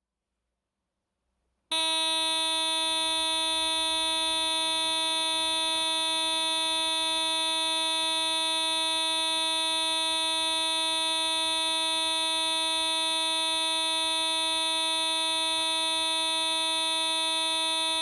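Horn of a 1995 Mercedes-Benz E200 sounding one long, steady, unbroken note that starts suddenly a couple of seconds in.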